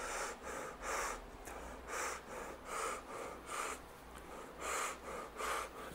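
A man breathing in and out hard and quickly through a surgical mask fitted with a mask brace, about two short breaths a second. He is drawing in hard to sample a nebulized sweetener mist and check for leaks around the nose.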